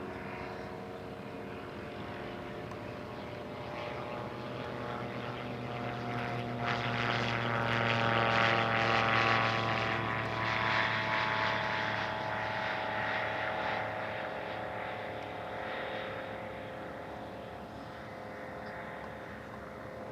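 Propeller-driven airplane flying past: its engine and propeller note grows louder to a peak about halfway through, dropping in pitch as it passes, then fades away.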